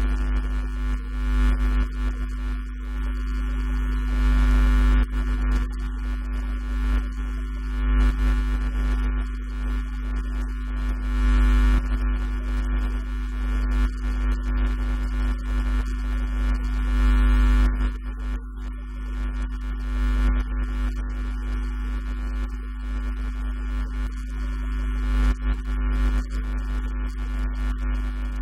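Loud, steady electrical mains hum with a stack of evenly spaced overtones, heavy in the low bass.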